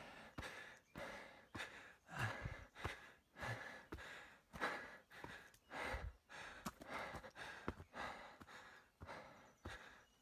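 A walker's footsteps on a rocky dirt trail, a short tread every half second or so, with the walker's breathing rising and falling between them.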